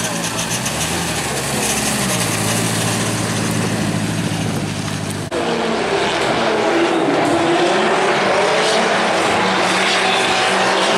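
A car engine running nearby, its pitch stepping up about two seconds in. It cuts off suddenly about five seconds in to drift cars on a track, their engines revving and rising and falling in pitch amid a steady rush of tyre noise as they slide.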